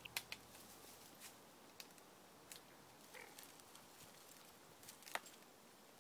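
Near silence: quiet outdoor ambience with a few scattered sharp clicks, the loudest about five seconds in.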